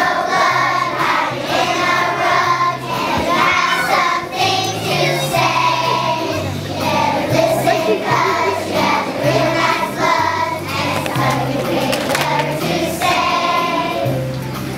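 A choir of kindergarten children singing a song in unison over a recorded accompaniment with a moving bass line.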